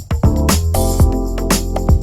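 Background music: an upbeat funk-style track with a steady drum beat and bass line, with a brief drop in loudness right at the start.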